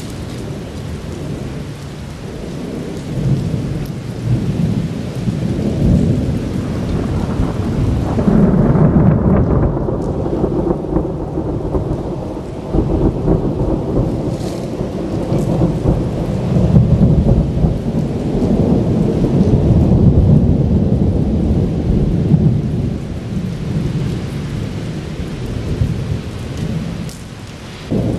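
Thunder from a nearly continuous lightning storm, rumbling and swelling in several long waves, with a sharper clap about halfway through, over steady rain.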